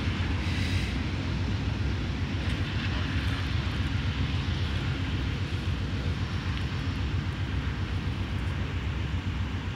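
Train moving slowly along the track, a steady low rumble.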